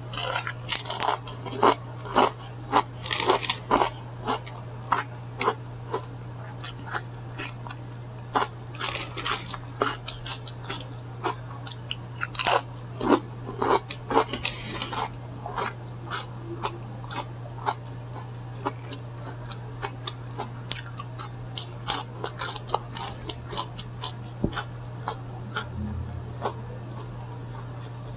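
Close-miked chewing of a Subway chicken sandwich: many short wet mouth clicks and crunches, thick for the first half and thinning out later, over a steady low hum.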